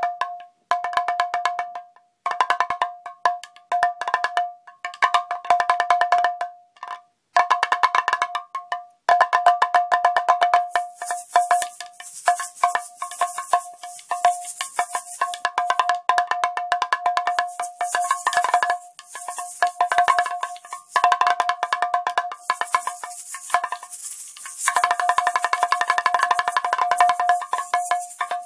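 Fast rhythmic strikes on a cowbell-like metallic percussion instrument, played in phrases with short gaps between them. About eleven seconds in, a shaker joins with a steady high hiss, dropping out briefly twice.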